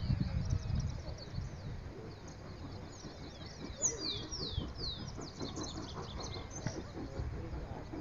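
Small birds chirping and twittering, with three or four loud downward-sliding whistled notes about halfway through.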